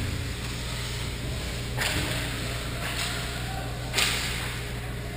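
Ice hockey rink sound during play: a steady low hum in a large echoing hall, broken twice by a sudden sharp sound that trails off in a hiss, about two seconds in and again about four seconds in.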